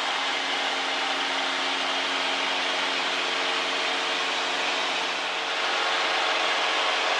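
Aviat Husky tow plane's piston engine and propeller at climb power, towing a glider, heard from inside the cockpit. It is a steady drone with a low hum under heavy wind hiss. About five and a half seconds in, it dips briefly and comes back slightly louder.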